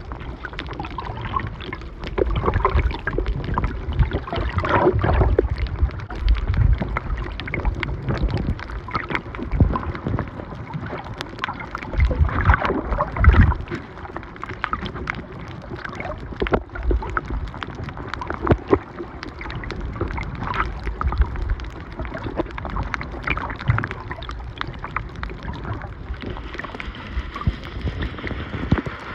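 Water sloshing and gurgling around a camera filming underwater, with uneven low surges and many small irregular clicks.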